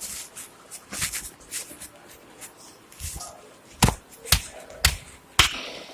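Shuffling and rustling, then four sharp smacks about half a second apart.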